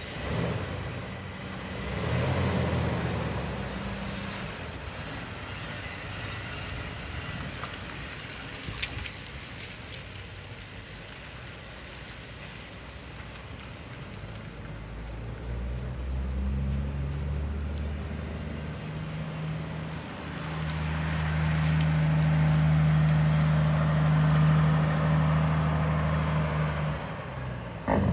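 1992 Ford F350 truck's engine running as the truck drives off across the lot. The engine grows quieter in the middle, then louder for several seconds as the truck pulls back around, dropping off near the end.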